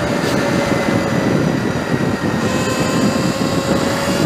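Sur Ron electric dirt bike's motor and controller whining as the bike runs at speed under power, over a steady rush of wind noise. The whine sags slightly in pitch and climbs again near the end.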